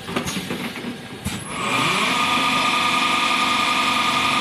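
Scattered clicks and knocks, then, about a second and a half in, the piston filling machine's electric motor spins up, rising in pitch, and settles into a steady whining hum.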